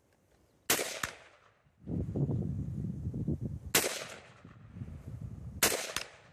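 Three single semi-automatic shots from an AR-15 rifle, the first near the start and the last near the end. Each sharp crack is followed about a third of a second later by a fainter second crack. A low rumbling noise runs between the first two shots.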